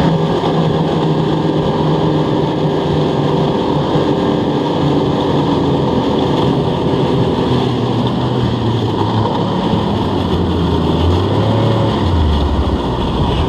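A Yamaha snowmobile's engine runs steadily under way, heard from the rider's seat. Its note drops lower in the last few seconds as it slows.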